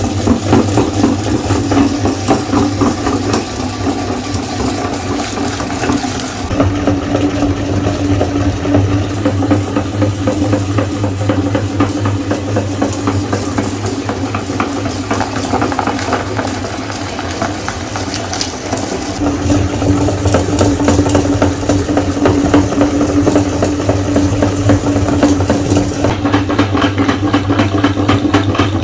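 Electric meat grinder motor running steadily, with a dense crackling rattle as it grinds Oreo cookies. The motor's pitch drops a little in the middle and comes back up near the end.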